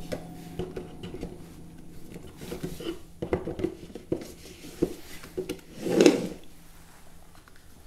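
Cardboard boxes and an Intel NUC mini PC being handled on a wooden floor: light knocks, scrapes and rustling, with one louder knock about six seconds in as the unit is set down on its box.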